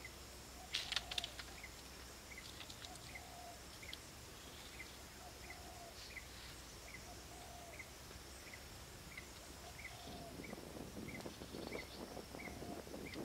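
Outdoor birds and insects: a short chirp repeating about every two-thirds of a second over a steady high insect buzz, with a lower call every second or two. About a second in come a few sharp knocks from bamboo poles being handled. From about ten seconds in there is rustling and scraping as hands work the bamboo frame.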